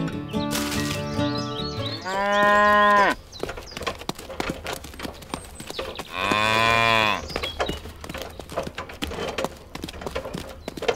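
A cow mooing twice: two long moos of about a second each, some four seconds apart.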